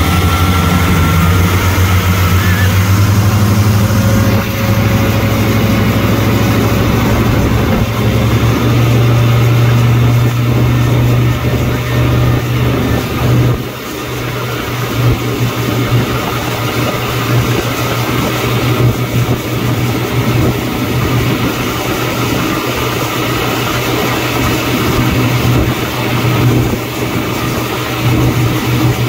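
Motorboat engine running and speeding up, with the rush of wake water and wind. The engine's low tone rises over the first ten seconds, then drops back about halfway through, leaving mostly the steady rush of water and wind.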